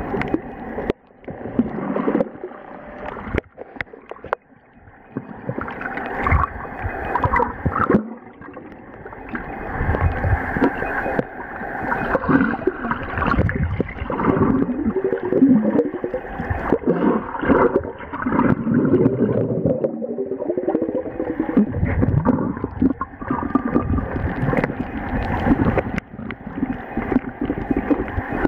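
Muffled underwater water noise heard through a submerged waterproof camera: irregular sloshing and gurgling that swells and fades as the camera moves through the water, with a few sharp knocks in the first few seconds.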